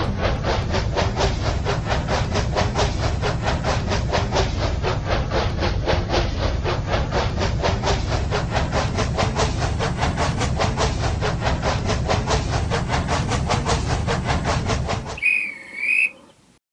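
Toy steam train running with a rapid, steady chuffing clatter that stops about fifteen seconds in, followed by a short warbling whistle.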